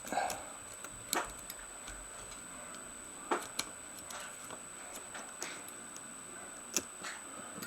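Small scattered clicks and taps of a precision screwdriver and tiny screws being worked on an iPhone's internal grounding bracket, about half a dozen at irregular intervals.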